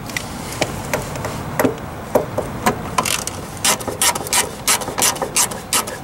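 Ratcheting screwdriver clicking as a T20 Torx screw holding the taillight assembly is backed out: a few scattered clicks, then a steady run of about three clicks a second from about halfway in.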